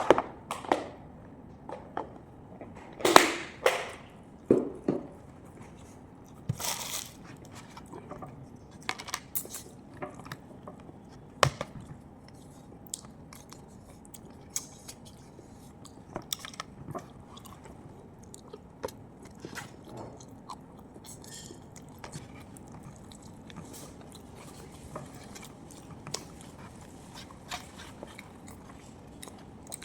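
A person chewing and biting food close to the microphone, with crunches and wet mouth clicks. The louder crunches come in the first seven seconds, then softer, scattered chewing clicks.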